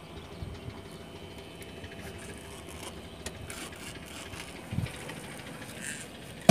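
Low steady background hum on a wooden boat, with a soft low thump about three-quarters through and a sharp knock at the very end as the landed barramundi are handled on the deck planks.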